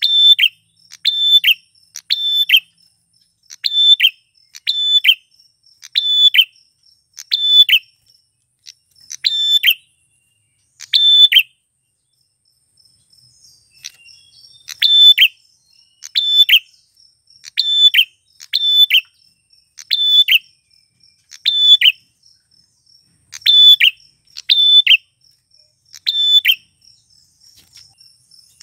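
Male prinia (prenjak) singing: loud, sharp call notes, each dropping quickly in pitch, repeated about once a second with a pause of a couple of seconds near the middle.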